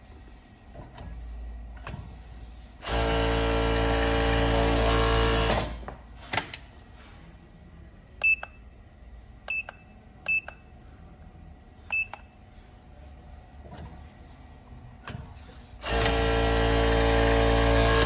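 Sevmak SK-988 direct-drive industrial overlock machine running at sewing speed for about three seconds, then stopping with a couple of clicks. Four short electronic beeps follow as its control-panel buttons are pressed, and the machine runs again for about two seconds near the end, cutting off suddenly.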